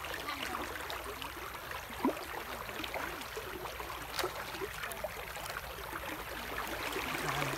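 River water flowing and sloshing around a person wading thigh-deep through it, with a couple of sharp knocks about two and four seconds in.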